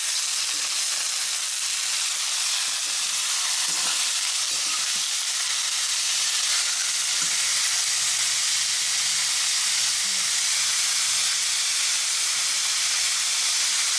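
Bone-in chicken pieces sizzling steadily as they fry in hot oil with onion and spices in a stainless steel kadai, stirred now and then with a metal spatula.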